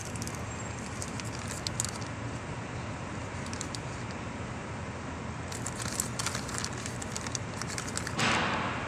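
Plastic parts bag crinkling and clicking as a new oil seal in its packaging is handled, with a louder rustle near the end, over a steady low hum.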